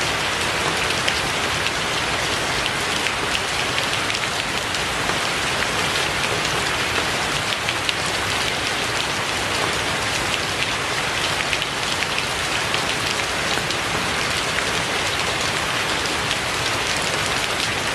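Steady rain falling, with many individual drops ticking sharply on a surface through the even hiss of the downpour.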